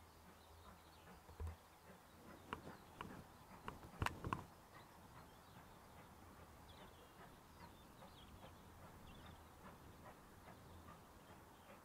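Near-quiet open-country ambience with faint bird calls. A short run of sharp clicks and knocks comes about two to four and a half seconds in, loudest around four seconds.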